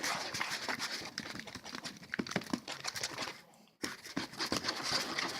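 Slime being squished and worked by hand, a dense run of sticky clicks and crackling pops, with a brief break about two-thirds of the way through.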